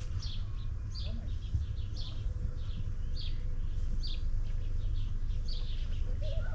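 Small birds chirping: short, high calls repeating about twice a second, over a steady low rumble.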